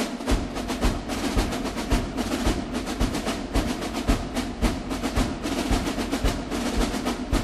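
Background music with a steady, fast drum beat.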